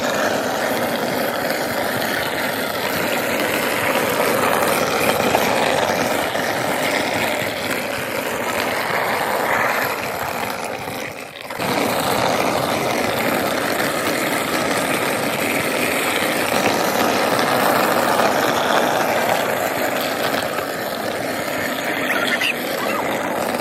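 Ball-bearing wheels of a carrinho de rolimã cart rolling fast down an asphalt road: a loud, steady grinding rumble that drops off briefly about eleven seconds in.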